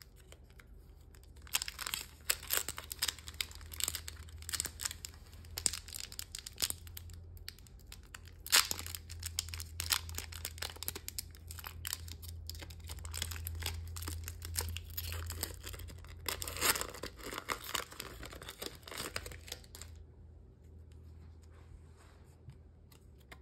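Foil-lined Pokémon booster pack wrapper being torn open and crinkled, with the cards inside handled. The crackling starts about a second and a half in, is sharpest around eight and a half seconds in, and stops a few seconds before the end.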